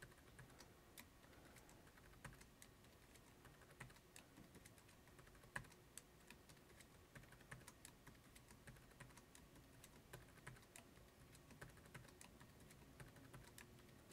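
Faint, irregular clicking of a computer keyboard and mouse, several light taps a second.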